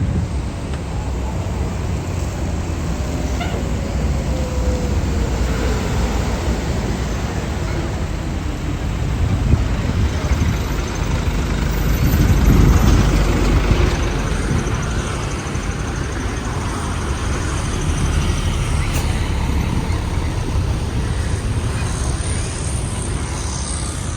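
Steady road traffic and vehicle engine noise, heavy and low, swelling louder about twelve seconds in.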